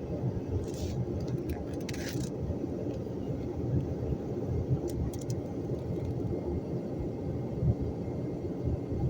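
Storm wind blowing with a steady low rumble, broken by a few brief clicks between one and two seconds in and again about five seconds in.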